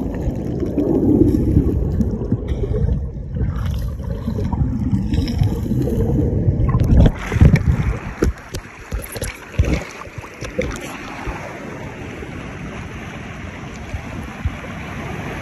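Seawater sloshing and splashing close to the microphone with a heavy low rumble for about seven seconds, then settling into a softer, steady wash of small waves with a few clicks.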